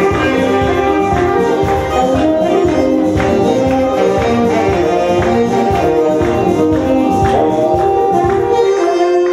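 Live saxophone playing a melody over an electronic keyboard accompaniment with a steady percussion beat.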